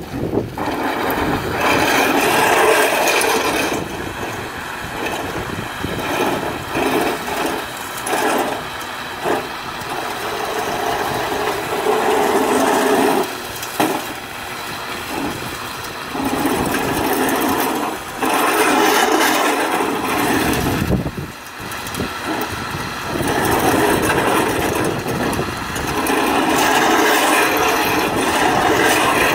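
Electric drive motors of two homemade battery-powered, remote-controlled robots, a lawnmower and a snowblower, whirring with a gritty, grinding quality as they drive on asphalt, swelling and dropping in stretches of a few seconds as they start, stop and turn.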